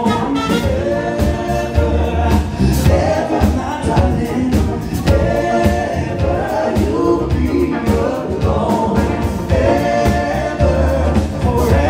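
Live band playing a song: several voices singing together over a steady drum beat and bass.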